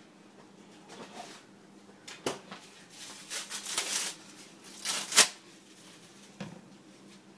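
A few short rustling and scraping handling noises, the loudest a sharp knock about five seconds in.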